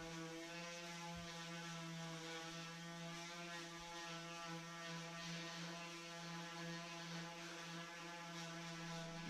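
Electric mouse detail sander running steadily on the wooden rocking chair, a constant hum that holds one pitch.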